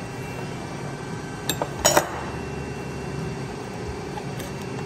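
A few sharp metal clinks as a steel digital angle finder ruler is set against a bent steel part on a steel table, the loudest pair about two seconds in, over a steady background hum.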